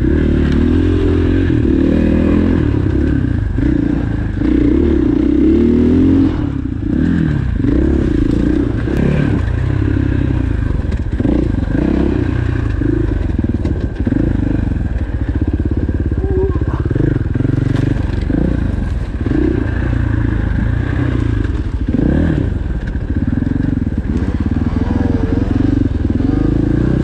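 Dirt bike engine running hard over rough trail, its note rising and falling again and again as the throttle is worked, with knocks and clatter from the bike over bumps.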